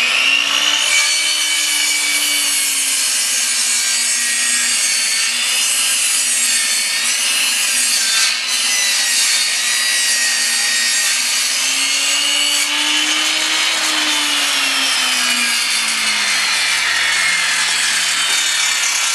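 Benchtop table saw running and cutting 3/4-inch plywood, its motor tone dipping and recovering as the wood is fed through the blade. About 14 seconds in the saw is switched off and its motor pitch falls steadily as the blade winds down from about 7,000 RPM.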